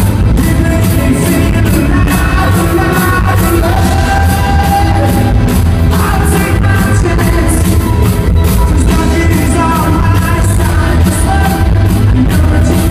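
Live pop-rock band playing, with a lead singer over a steady drum beat.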